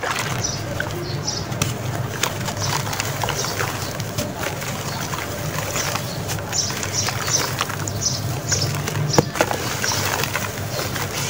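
Hands squeezing and crumbling lumps of soft wet sand in a basin of foamy water: wet crackling, sloshing and splashing, with a handful of sand falling back into the water near the end. Birds call in the background.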